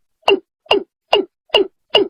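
Watercock calling: a steady series of short notes, each falling in pitch, about two and a half a second.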